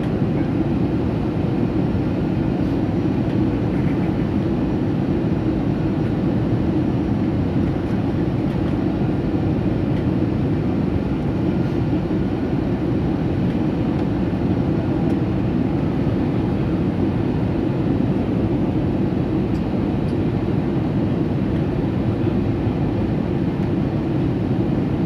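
Steady low rumble of an Airbus A320 airliner, unchanging throughout.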